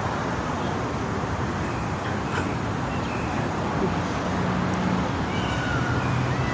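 Peacock calling: a pitched, wailing call that begins about five seconds in, over steady background noise.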